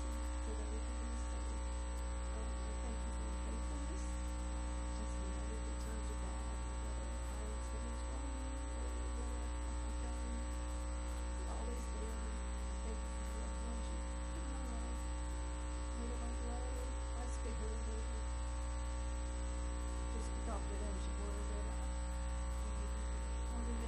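Steady electrical mains hum and buzz running through the recording, with faint, indistinct wavering sounds underneath.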